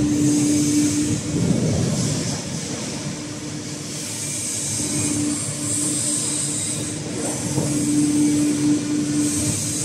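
CNC hydraulic press brake running: a steady hum over rumble and hiss. The hum drops away about a second in and comes back around the middle.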